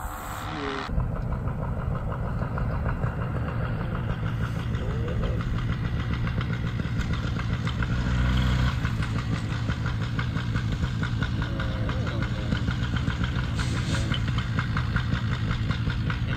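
Paramotor's small two-stroke engine running steadily, a little louder about eight seconds in.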